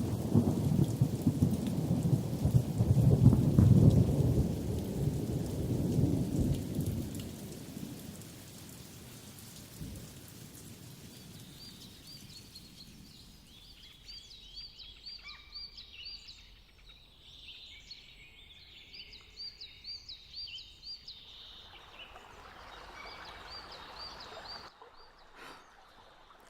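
A thunderstorm: a long, low roll of thunder with rain, loudest in the first few seconds and fading away by about eight seconds in. After that, faint, high, repeated chirps are heard in the quiet.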